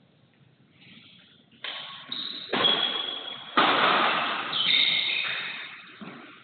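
Badminton rally: several sharp racket hits on the shuttlecock, the loudest about two and a half and three and a half seconds in, each ringing on in the echoing hall, with shoes squeaking on the court between them.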